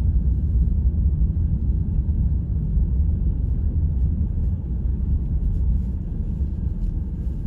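Strong blizzard wind buffeting the microphone: a steady, loud low rumble that eases slightly toward the end.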